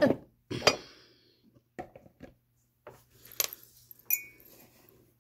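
A few separate knocks and clinks of hard objects being handled and set down on a tabletop, the last one near the end ringing briefly like a ceramic or glass clink.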